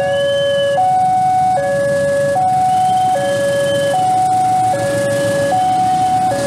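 Electronic level-crossing warning alarm sounding a steady two-tone high-low call, each tone held just under a second, over the low rumble of a CC 206 diesel locomotive passing with its train.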